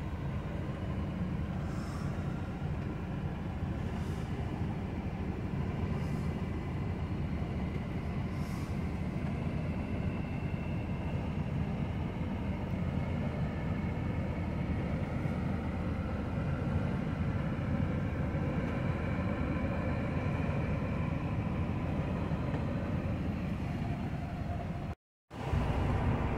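Steady low rumble of an idling diesel engine, heard from inside a truck cab. It cuts out for a moment near the end and comes back slightly louder.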